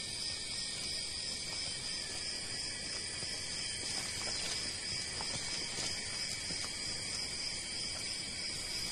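Rainforest insect chorus: a steady, high-pitched buzz of many insects, several layers of tone on top of one another.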